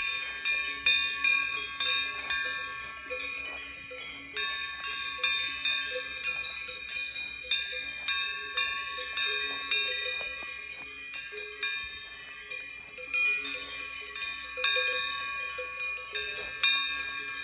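Cowbell on a grazing cow's collar clanking irregularly, a few strikes a second, each note ringing on, as the cow moves its head while cropping grass.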